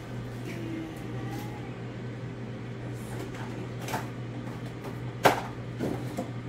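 Kitchen cooking sounds: a steady low hum, with a few light clicks and one sharp knock about five seconds in.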